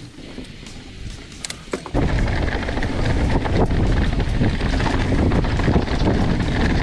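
Mountain bike riding downhill on a dirt trail: tyres rolling over dirt and rock, the bike rattling, and wind rushing over the handlebar camera's microphone. A few sharp clicks come first, then about two seconds in the sound jumps suddenly much louder and stays as a dense rumble.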